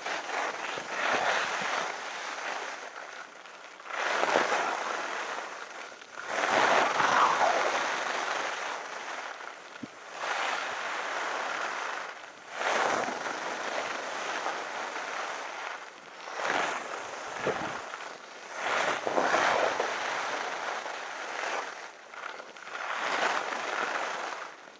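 Skis carving turns on groomed snow: a scraping hiss of the edges that swells with each turn, every two to four seconds, with wind buffeting the microphone.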